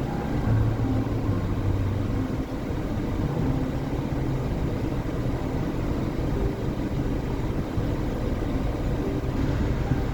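Coal train passing: a steady low rumble with a low engine-like drone, strongest in the first couple of seconds.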